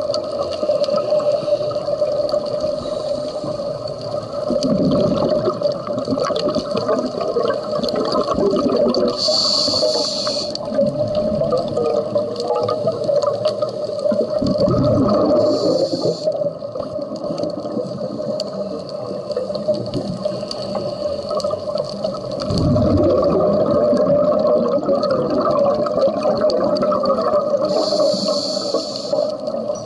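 Scuba diver breathing through a regulator underwater: short hissing inhalations alternate with low rumbling bursts of exhaled bubbles every several seconds, over a steady hum.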